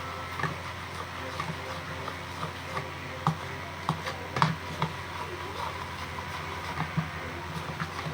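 A spoon stirring shampoo and salt slime in a bowl, with irregular light clicks and knocks of the spoon against the bowl, over a steady low hum.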